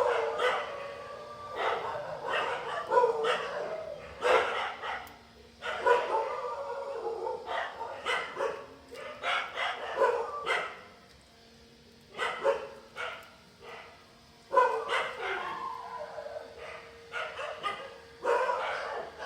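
A dog barking again and again, in short outbursts a second or two apart, with a few brief pauses.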